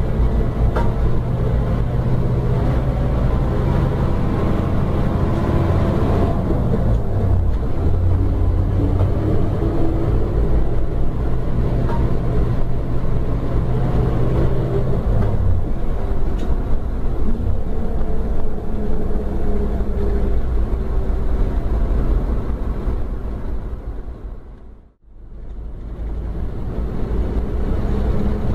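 Scania K310 coach's rear-mounted diesel engine heard from inside the passenger cabin on the move, a steady drone with road noise, its note shifting about six seconds in and again about fifteen seconds in. Near the end the sound fades out to silence and straight back in.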